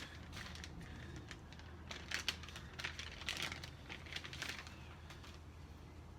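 Faint, scattered rustles and clicks of supplies being handled for the measuring step, mostly in the first five seconds, over a low room hum.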